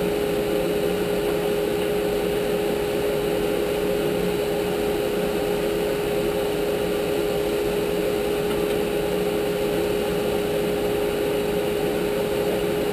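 Table saw running with a steady, unchanging hum while a pine strip is fed across the blade to cut a groove.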